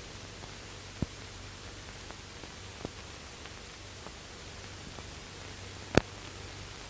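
Steady hiss of an old optical film soundtrack, with a couple of faint clicks and one sharp click about six seconds in.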